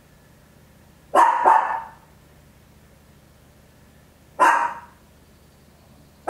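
Papillon, a toy-breed dog, barking: two quick barks about a second in, then a single bark about three seconds later.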